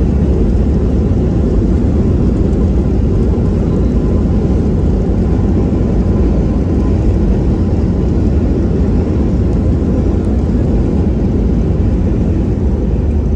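Loud, steady cabin rumble of a Boeing 737 MAX jet airliner on its landing roll down the runway, with spoilers deployed, as heard from a window seat: engine noise mixed with wheel and airframe rumble.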